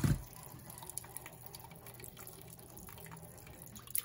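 Kitchen tap running a thin stream of water into a metal bowl of frozen mixed vegetables in a stainless steel sink, with light dripping and small clinks. A dull knock as it begins and a sharp click near the end.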